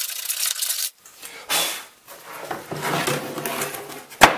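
A hand-held block scrubbed across the sawn end-grain face of a log slab: three bouts of rough scraping strokes, then one sharp knock near the end.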